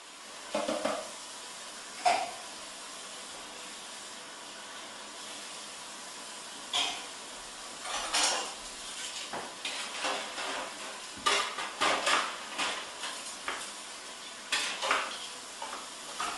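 Kitchen clatter from filleting a large tuna: irregular knocks and scrapes of a knife and metal utensils on a cutting board and steel counter, over a steady hiss. A couple of knocks come early, then a busier run of clatter from about seven seconds in.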